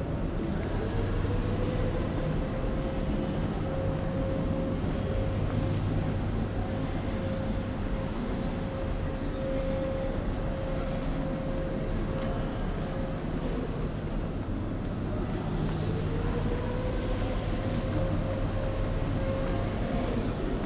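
Steady mechanical hum and rumble, with a whine that rises about a second in and holds, fades, then rises and holds again near the end.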